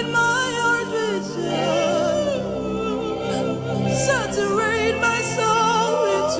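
Gospel worship music: a singing voice drawing out long, wavering notes with vibrato over sustained held chords.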